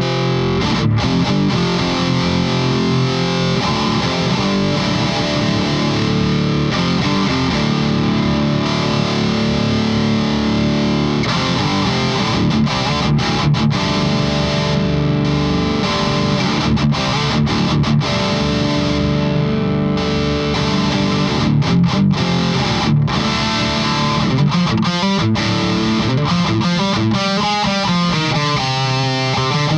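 Distorted electric guitar, a PRS SE with Core Sound Harker's Island pickups, played through a Victory Super Kraken amp pushed by a Fortin overdrive pedal. It plays riffs and held chords broken by short stops, and near the end a held note wavers in pitch.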